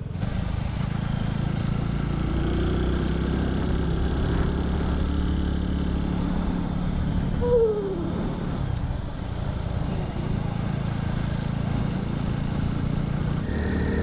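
Motorcycle engine running steadily at cruising speed while riding, with a rushing noise over it, and a short falling tone about halfway through.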